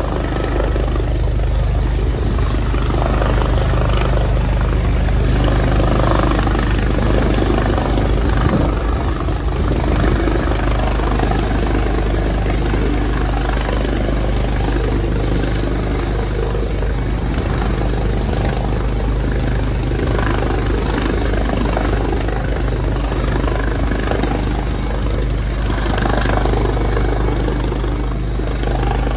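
Rescue helicopter hovering over a ship to hoist off a passenger: a loud, steady drone of rotor and engine with a constant low hum.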